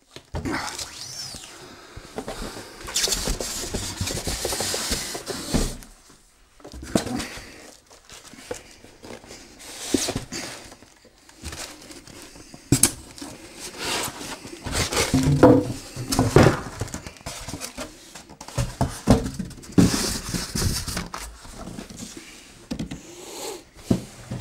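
A cardboard carton being handled while a heavy loudspeaker is worked out of it: scraping and rustling of cardboard and packing, with scattered knocks and bumps.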